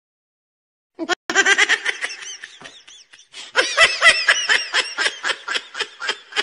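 A person laughing in quick repeated high-pitched bursts, starting about a second in after a short silence.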